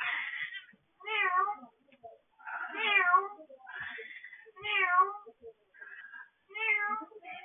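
A cat meowing loudly and insistently, about six drawn-out meows roughly one a second. This is the night crying of a newly rescued former stray cat settling into indoor life.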